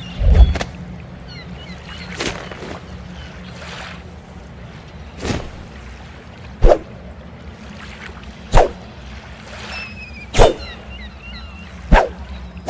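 Folding sword being snapped open and shut: a sharp clack about every one and a half to three seconds, seven in all, two of them weaker.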